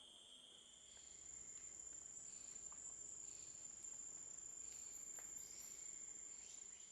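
Faint, steady high-pitched insect shrilling, with a higher-pitched insect taking over from a lower one about half a second in, and a few faint ticks.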